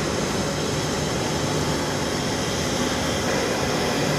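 Twin-engined jet airliner with rear-mounted engines passing overhead, its engines making a steady rushing noise that does not rise or fall.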